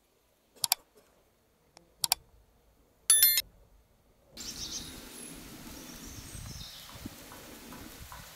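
A few sharp clicks or knocks in near silence, the loudest with a brief ringing tone about three seconds in. From about four seconds in comes a steady outdoor background with birds chirping.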